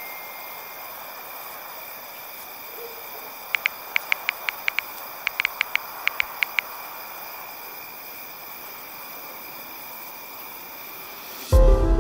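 Smartphone on-screen keyboard tap clicks: about fifteen quick, sharp ticks in two bursts as a search query is typed, over a steady faint hiss. Loud music cuts in just before the end.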